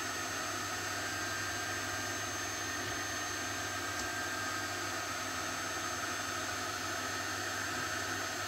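Steady hiss with a faint, constant high whine and low hum, like a fan or other small machine running in the room, with one faint tick about four seconds in.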